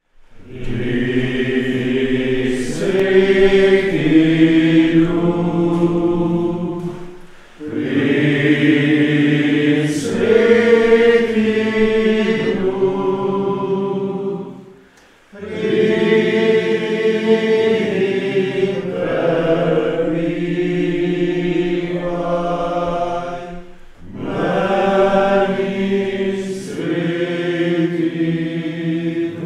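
Voices singing a slow, sustained chant in four long phrases, with short breaks for breath between them.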